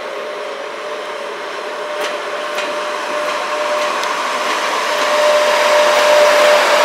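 EP1M electric locomotive passing close under power, its blowers and traction motors giving a steady whirring hum with a held whine that grows louder as it draws near.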